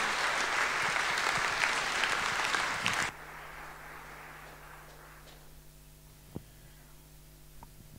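Audience applauding, breaking off abruptly about three seconds in and fading to a faint tail. After that there is a steady low hum from the sound system and a sharp knock from the microphone being handled.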